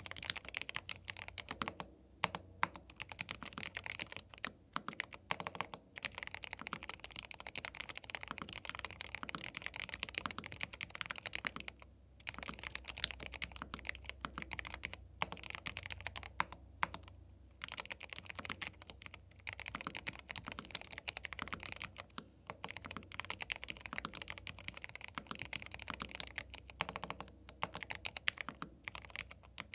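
Steady, fast typing on a YUNZII B75 Pro, a gasket-mounted 75% mechanical keyboard with Milk linear switches: a dense run of key presses and keycap clacks, broken by a few brief pauses.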